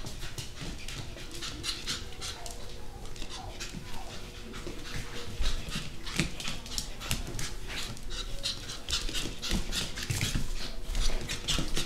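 Japanese Chin puppy panting quickly, with the light, rapid clicks of its claws on a hard vinyl floor.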